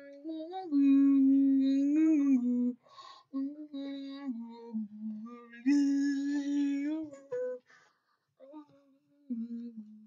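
A voice humming a slow tune: long held notes that step up and down in pitch, with short breaks between phrases.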